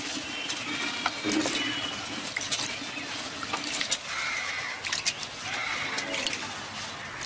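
Moong dal being washed by hand in water in a stainless steel bowl: sloshing and swishing water with many light clicks of grains and fingers against the metal.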